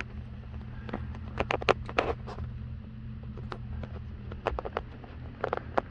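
Scattered clicks, light knocks and scrapes of a dishwasher drain hose being handled and fitted at the sink's air gap connection, over a steady low hum.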